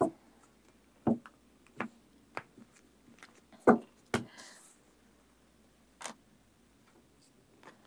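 A deck of fortune-telling cards being handled and laid out on a table after shuffling: a scattering of light taps and clicks a second or so apart, with a short papery slide about four seconds in.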